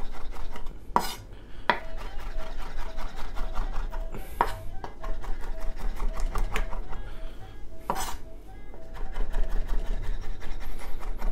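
Chef's knife rapidly chopping raw beef on a wooden cutting board, mincing steak for tartare: a quick, even run of knife taps on the board, broken by a few harder strikes.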